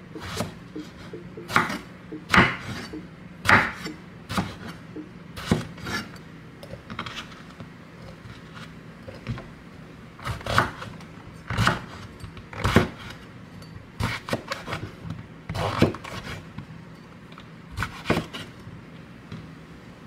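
Kitchen knife cutting through eggplant onto a wooden cutting board, with irregular sharp knocks roughly one a second, mixed with eggplant pieces being dropped into a glass container.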